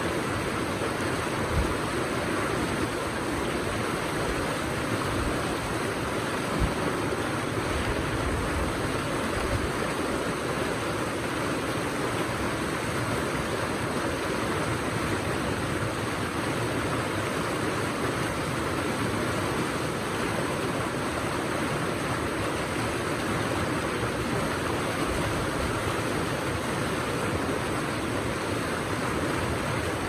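River rapids rushing steadily over and between boulders, white water churning in a small chute. A couple of brief low thumps come in the first seven seconds.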